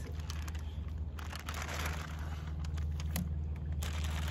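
Plastic bag of raw chicken bait crinkling and rustling as it is handled, over a steady low rumble, with a single sharp click about three seconds in.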